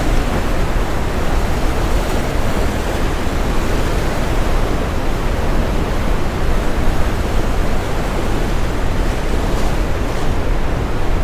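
Brown noise, a steady deep rushing hiss heaviest in the bass, mixed with the wash of ocean waves breaking. The level stays nearly even, with only small swells.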